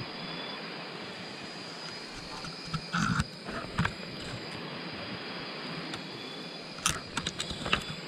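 Night forest ambience: a steady hiss of insects with a constant high-pitched tone. A few sharp knocks and clicks come about three seconds in and again as a quick cluster near the end.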